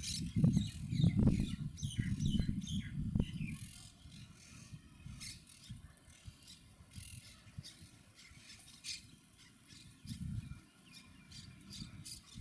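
Monk parakeets chattering with short, harsh chirps and squawks throughout. Under them runs a low rumble, loudest in the first three to four seconds.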